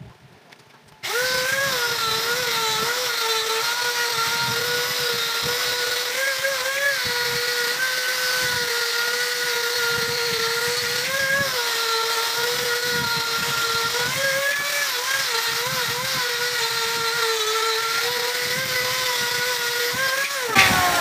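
Electric angle grinder with a buffing wheel charged with green polishing compound, polishing a metal bumper tube. It is switched on about a second in and gives a steady whine whose pitch dips slightly each time it is pressed onto the tube, then is switched off right at the end, its whine falling as it winds down.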